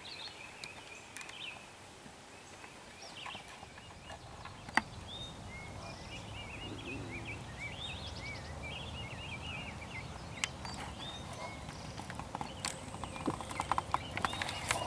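Outdoor field ambience: a small bird chirps a quick twittering song in the middle stretch, over a low rumble that grows slowly, with a few sharp clicks, the loudest about five seconds in.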